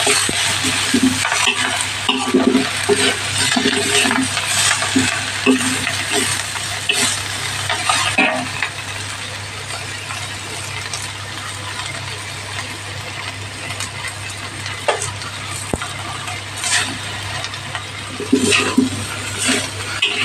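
Katuray leaves sizzling in a frying pan as they are stirred, with the spatula scraping and knocking against the pan now and then. A steady low hum runs underneath.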